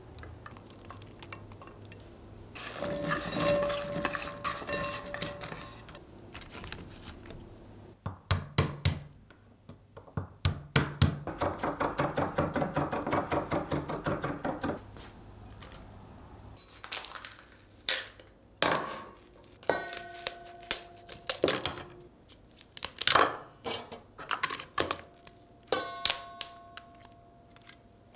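Chef's knife mincing garlic on a wooden cutting board: a quick, even run of chopping strokes. Then loud metallic clinks, some leaving a clear ringing tone, as kitchen scissors and utensils knock against a stainless steel pot.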